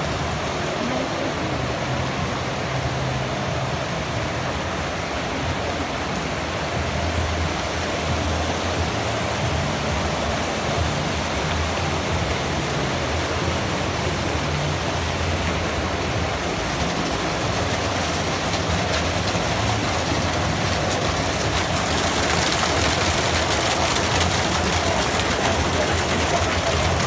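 Steady shopping-mall background noise: an even hiss with a low hum underneath, growing brighter and a little louder near the end.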